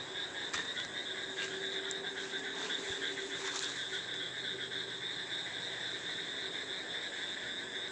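Steady night chorus of crickets and frogs, a constant high-pitched trill with a lower steady buzz beneath it.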